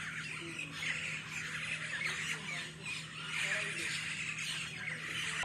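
A flock of birds chirping and squawking continuously, many calls overlapping, over a steady low hum.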